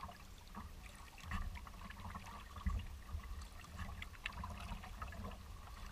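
Water trickling and lapping around a kayak as it is paddled, with small drips and splashes and a louder swell twice, under a low rumble.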